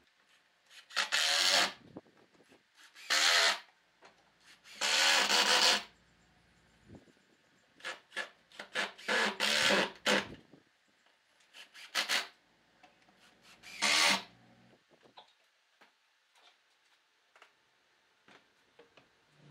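Cordless drill driving screws into a wooden rail: about six short bursts of the drill running, each a second or so long, as one screw after another is driven home into the wood.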